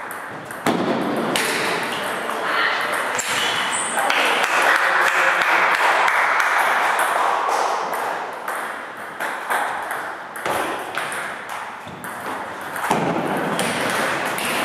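Table tennis rally: the celluloid ball clicking sharply again and again off the bats and the table.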